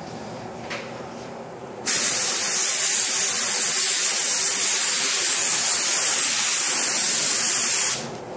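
Compressed-air paint spray gun (Iwata) spraying primer: a steady hiss that starts abruptly about two seconds in as the trigger is pulled, runs for about six seconds, and cuts off near the end as it is released.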